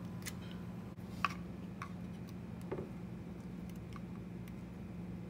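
A few light clicks and taps from a synthetic rifle forend being turned over in the hand, the sharpest about a second in, over a steady low hum.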